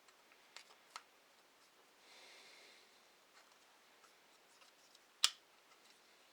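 Dry cotton swab rubbing briefly over a Glock 34's polymer frame to wipe off the cleaning solution, among light clicks of handling, with one sharp click a little over five seconds in.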